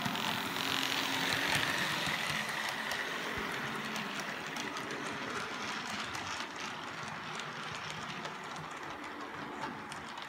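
Model railway train, a Bachmann Class 24 diesel locomotive hauling Hornby Mk1 coaches, running along the track with a steady motor whir and wheels clicking over the rail joints. Loudest in the first couple of seconds as it passes close, then a little quieter as it runs away round the curve.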